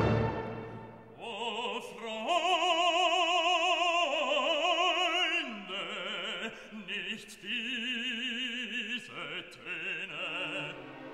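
Operatic singing: a solo voice holding long notes with a wide vibrato, coming in about a second in.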